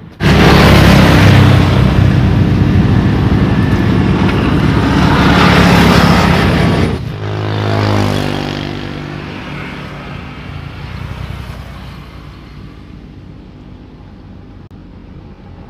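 A road vehicle passing close by: a loud rush of engine and tyre noise that comes up suddenly, with the engine note dropping in pitch as it goes past about seven seconds in, then fading away.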